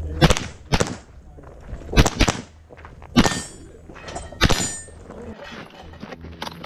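A short AR-style semi-automatic carbine firing a string of about seven shots: two quick pairs in the first two and a half seconds, then single shots a second or more apart, each with a short echo.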